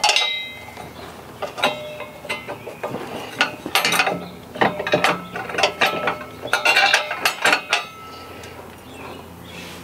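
Steel U-bolts, nuts and washers clinking and rattling against a steel spare tire carrier bracket and square bumper as they are fitted by hand. A ringing metal clink comes right at the start, followed by irregular clicks, which are busiest in the middle.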